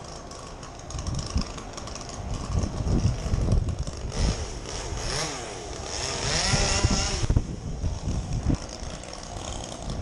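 An engine running, its pitch rising and falling in glides over a low rumble.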